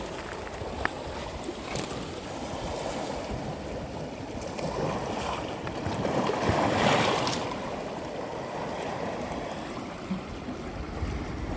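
Sea waves washing on a sandy beach; a wave swells and breaks about six to seven seconds in, then the wash eases back.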